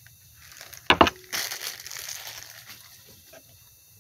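Two quick knocks about a second in as a small hard item is set down on a table, then about a second and a half of packaging being handled and rustled in the box, fading out.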